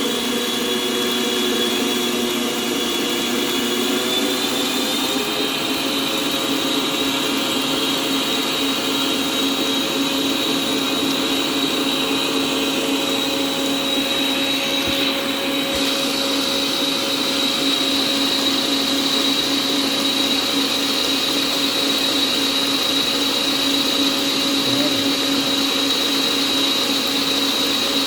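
Electric motor of a new kitchen appliance running steadily at speed, beating cake batter, with a steady hum and a high whine.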